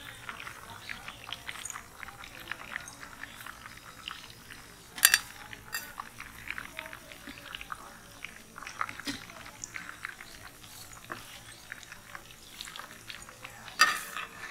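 Fish pieces deep-frying in hot oil in an iron kadai: a steady scatter of small crackles and sizzles. Two sharp metal clinks, about five seconds in and near the end, from the steel strainer and ladle knocking on the steel vessels.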